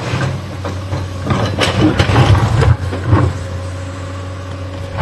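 Hydraulic excavator's diesel engine running steadily, with a cluster of knocks and rattles from about one and a half to three seconds in.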